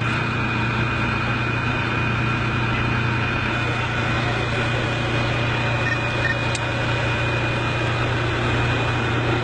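An engine running steadily at a constant pitch, with a thin high whine above the low hum.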